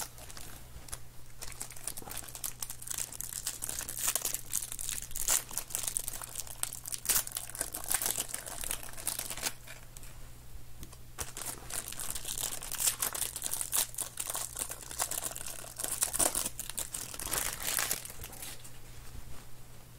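Plastic sleeves and wrapping crinkling and rustling in irregular spurts as trading cards are handled and sorted, with a short lull about halfway through.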